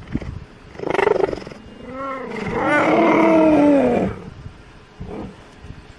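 Cheetah calling: a short rough burst about a second in, then a brief call and a long drawn-out pitched call of about a second and a half that drops in pitch as it ends.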